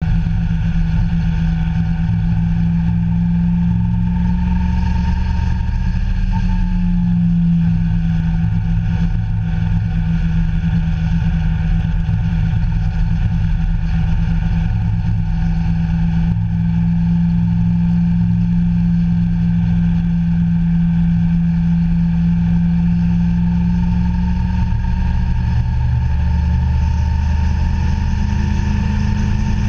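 Vehicle engine running steadily while driving, with a constant hum over a low rumble. The hum dips briefly about six seconds in and rises in pitch near the end.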